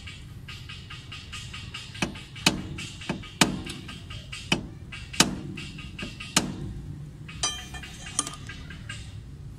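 About nine sharp metal knocks at uneven intervals: a hammer striking a screwdriver held against the rear hub nut, staking its collar so the nut locks. Background music plays underneath.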